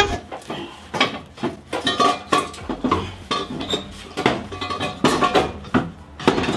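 Repeated clanks and clinks of metal, some ringing briefly: an engine hanging on a hoist's chains being worked loose, with its exhaust header knocking against the car's body because it is caught and hitting.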